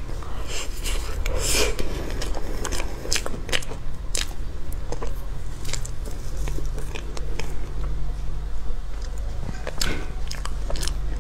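Close-up eating sounds of soft layered crepe cake: wet chewing and mouth clicks, with a spoon cutting into the cake. A steady low hum runs underneath.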